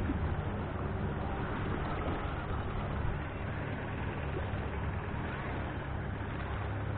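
Longtail boat's big diesel engine running steadily at low speed, a low even hum.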